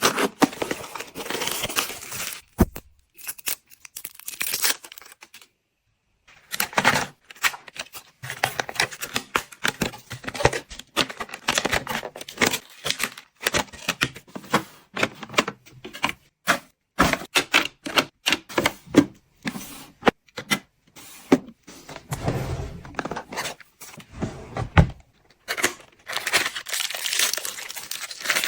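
Household handling sounds: plastic packaging rustling, crinkling and tearing, broken up by many sharp clicks and light knocks of items being handled and set down, with a short pause about four seconds in.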